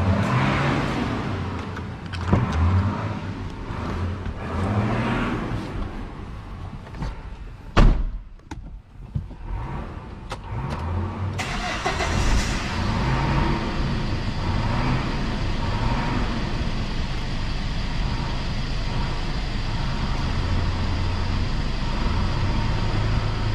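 Irregular clatter and one loud knock, then a car engine starting about halfway through and idling steadily.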